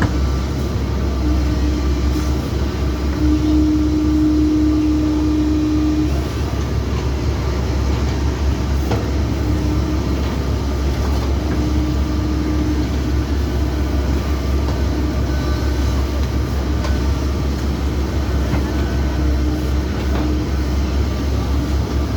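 Heavy excavator's diesel engine running steadily, with a higher whine that comes and goes several times.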